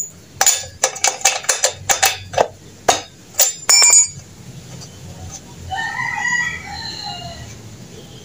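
Irregular metallic clinks and knocks of a spark plug wrench being fitted and worked on a brush cutter's spark plug to remove it. About five and a half seconds in, a rooster crows in the background for about two seconds.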